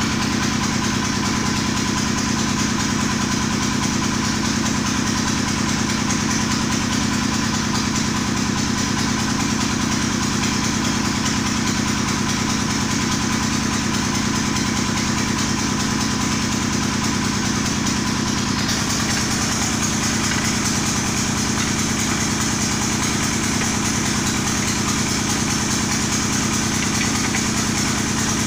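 An engine idling steadily at an even pace.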